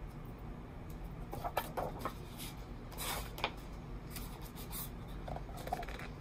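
Pages of a hardcover picture book being turned and handled: paper rustling and rubbing with scattered soft taps, and a longer rustle about three seconds in.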